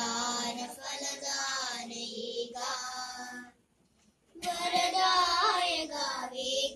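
A child singing two sustained phrases, with a break of about a second between them.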